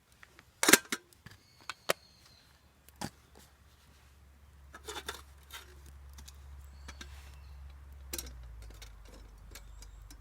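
A few sharp clicks and knocks, spaced irregularly, the loudest near the start. From about four seconds in, a low steady rumble builds underneath.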